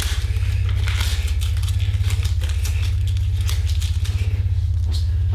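A steady, loud low drone with a fast throb, laid under the scene as film sound design. Small sharp clicks of a metal watch strap being fastened sound over it.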